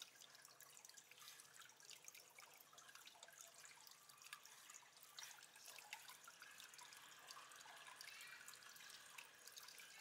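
Faint trickling and dripping water from an aquarium waterfall, with small scattered drips.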